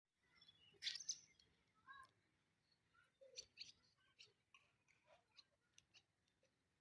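Pet birds chirping: many short, high chirps and calls scattered irregularly, the loudest about a second in.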